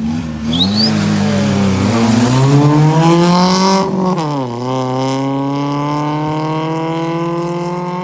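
Car engine accelerating hard from the start of a drag race, its pitch climbing steadily through the first gear. About four seconds in, the pitch drops sharply at a gear change, then rises slowly again as the car pulls in the next gear. A brief high chirp comes about half a second in.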